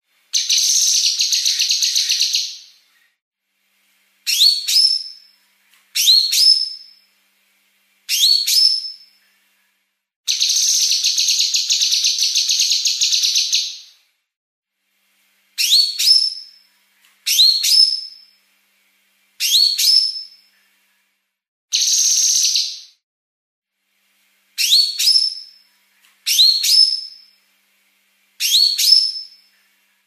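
Female blue-masked leafbird (cucak kinoi) singing a fast, tightly packed song. Three long, dense, rapid buzzy trills alternate with about ten short, quick calls that rise in pitch.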